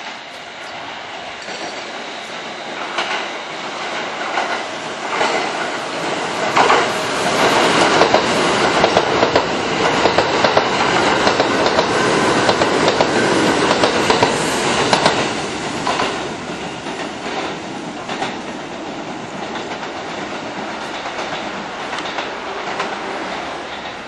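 Kintetsu commuter electric train running through a station at speed: it grows louder on approach, is loudest for about eight seconds in the middle as the cars pass close by, then fades. Wheels clack over rail joints and points throughout.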